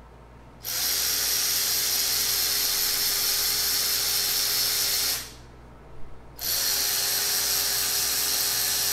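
Hercules 12 V cordless 3/8-inch ratchet with a brushed motor, its head spinning with no load, giving a steady whir. It runs twice: once for about four and a half seconds, then, after a pause of about a second, again from about six and a half seconds in.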